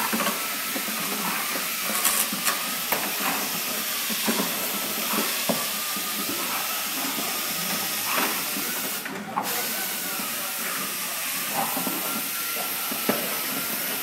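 A steady hiss with a faint wavering whine, broken by scattered short knocks and scrapes as two dogs bite and drag a plastic car bumper cover across a concrete floor.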